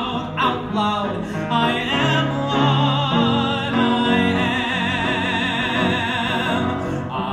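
A man singing a show tune at full voice over instrumental accompaniment: a few changing notes, then one long climactic note held with vibrato from about three seconds in until near the end.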